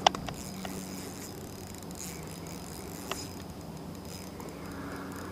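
A few sharp clicks right at the start from a hand handling the fishing rod's spinning reel and its setup. Then a steady background hiss with a faint low hum, and one soft click about three seconds in.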